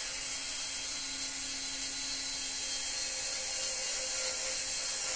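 Cordless drill-driver running steadily at speed, its motor whining as it drives a screw into a subwoofer enclosure.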